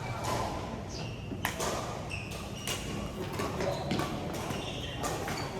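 Game on an indoor court: a string of sharp hits and taps with a few short high squeaks, echoing in a large hall over murmured voices.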